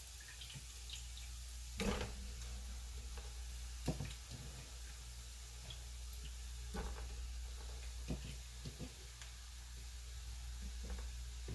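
Frozen mixed vegetables (broccoli, cauliflower, carrots) sizzling faintly in butter and oil in a nonstick pan while a wooden spoon stirs them. There are occasional soft knocks of the spoon against the pan, the clearest about two and four seconds in, over a steady low hum.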